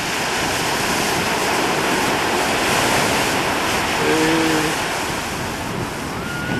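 Steady rush of choppy, breaking sea waves with wind on the microphone. A brief low hum-like tone comes about four seconds in, and a thin high tone near the end.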